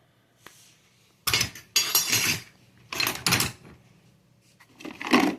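Metal hand tools clinking and clattering as they are handled and set down, in three short bursts about a second and a half apart.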